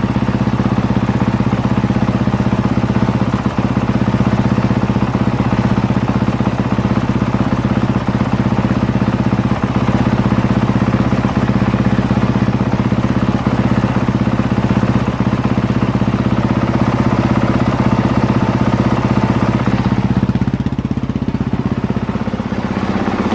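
2023 Honda CRF450R's single-cylinder four-stroke engine idling steadily, being run up to full operating temperature, with coolant at a little over 200°F.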